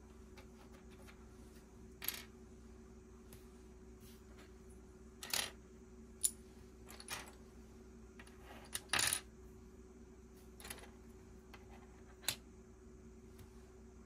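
Plastic Lego pieces being handled and clicked together: irregular sharp clicks and small clatters, with a short rattle a little past the middle.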